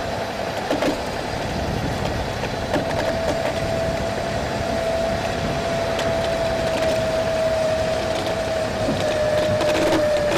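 Fibreglass dinghy hull being winched up onto its trailer's rollers, creaking and grinding, with a few knocks. A steady whine starts a couple of seconds in and drops slightly in pitch near the end.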